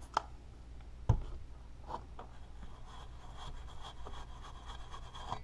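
Fine steel wool scrubbing Windex-wet grime off a power transistor and its heat sink on an amplifier circuit board: a soft, scratchy rubbing. A short click near the start and a knock about a second in come before the scrubbing settles in.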